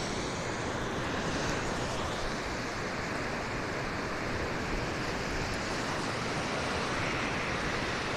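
Lake surf washing onto the beach, a steady rushing noise, with wind buffeting the phone's microphone.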